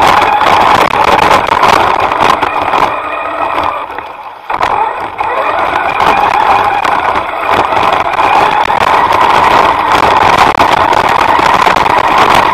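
Electric motors of an FPV model running at steady throttle with a high, even whine. About three seconds in the throttle eases off, then picks back up about a second and a half later.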